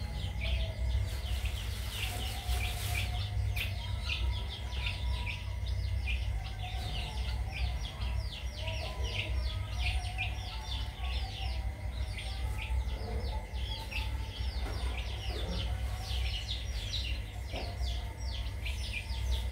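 Birds chirping without pause: many short, high, falling peeps in quick succession, over a steady low hum.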